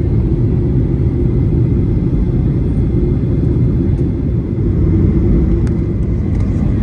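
Steady low rumble of cabin noise inside a Boeing 737 airliner in flight, dipping briefly about four seconds in.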